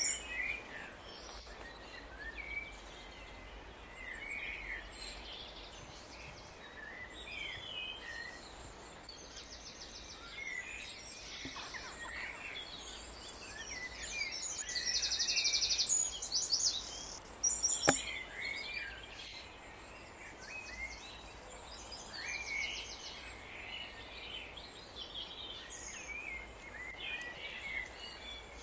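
Songbirds calling and chirping, with several short, fast, high trills among the chirps. A single sharp click sounds about 18 seconds in.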